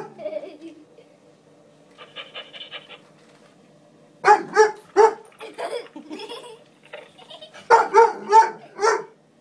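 A dog barking in two runs of short barks, a few about four seconds in and another run near the end.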